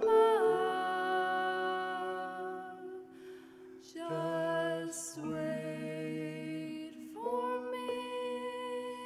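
Slow music: vibraphone chords ringing and held under a wordless sung melody that slides down in pitch at the start, with new notes coming in about 4, 5 and 7 seconds in.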